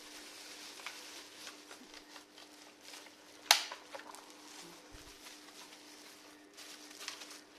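Plastic toy guns being handled: scattered light clicks and rustling, with one sharp snap about three and a half seconds in, over a steady low hum.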